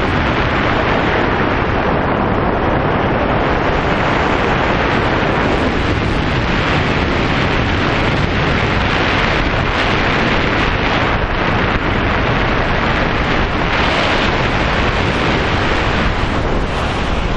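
Steady, loud wind rushing over a wrist-mounted camera's microphone during a tandem parachute descent under an open canopy.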